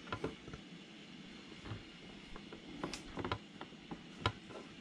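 Scattered light clicks and taps of a metal fairing ball-mount bracket being worked down between a motorcycle windshield and fairing, catching on the brass windshield-bolt fitting. The loudest tap comes near the end.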